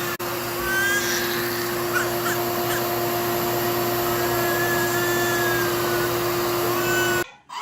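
A steady, loud motor whir with a constant hum, like a household appliance running. It cuts off suddenly near the end.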